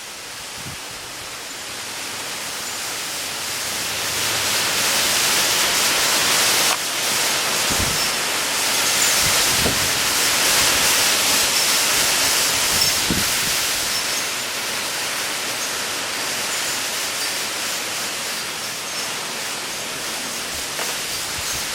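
Windy rainstorm: a steady rushing hiss of wind and rain that swells over the first several seconds, then eases off a little.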